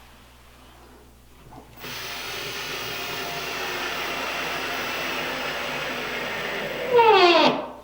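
Drill driving a small square-head finish screw into MDF: the motor runs steadily for about five seconds, then gets louder near the end with a sharply falling pitch as it bogs down and stops. The screw is splitting the MDF.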